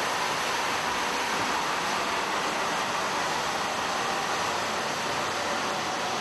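Superconducting MRI magnet quenching: liquid helium boiling off and rushing out through the quench vent as a steady, loud hiss that eases slightly over the seconds. The sound is the sign of the magnet losing superconductivity and its field collapsing.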